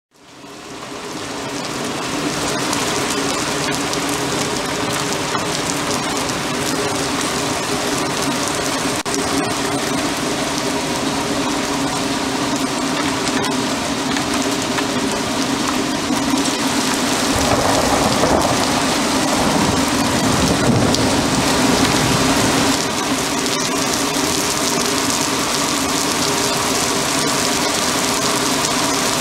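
Heavy thunderstorm rain pouring steadily, fading in over the first two seconds, with a steady low hum beneath it. A low rumble of thunder swells about two-thirds of the way through and dies away.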